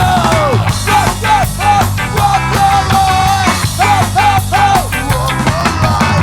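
Background punk rock music: a voice singing over a band with a steady drum beat.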